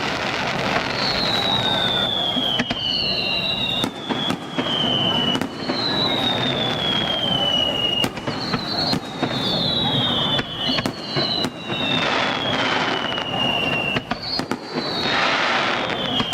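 Fireworks display: a run of overlapping whistles, each falling in pitch over a second or two, about ten in all, over steady crackling and sharp bangs.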